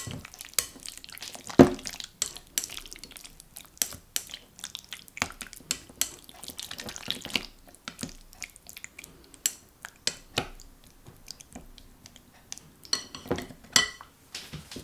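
Chopsticks mixing marinated sliced beef in a glass bowl: irregular clicks and taps of the sticks on the glass with the wet meat being turned, a louder knock about a second and a half in, and a quick run of ringing taps on the bowl near the end.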